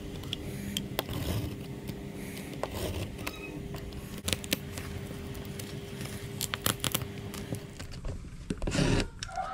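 Utility knife blade scoring through cured fibreglass along the edge of masking tape, a run of short scrapes and clicks, with a louder rasp near the end.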